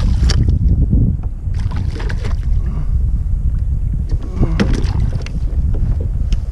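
Steady wind rumble on the microphone, broken three times by short splashing and clattering bursts as a hooked Spanish mackerel thrashes at the surface and is swung aboard a plastic kayak.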